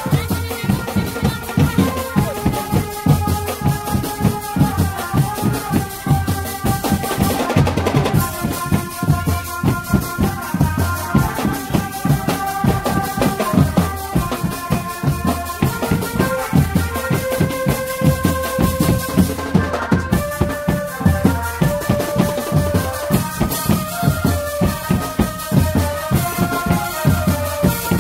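Drum band music: marching snare and bass drums beating a fast, steady rhythm with a rattling percussion layer, under a melody of held notes.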